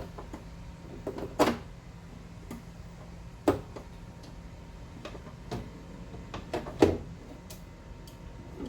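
Scattered knocks and clunks of hand tools and loose parts being handled in a car door during window regulator removal. There are about five of them, the louder ones about one and a half seconds, three and a half seconds and seven seconds in.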